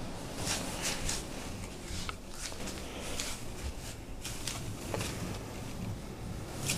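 Quiet room tone with faint, scattered rustles and soft taps from a handheld camera being carried and a person walking.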